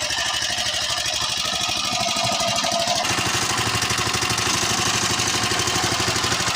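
Honda GX120 single-cylinder four-stroke engine of a ketinting longtail boat running steadily under load against a strong flood current, with rapid even firing pulses. Its sound changes abruptly about three seconds in.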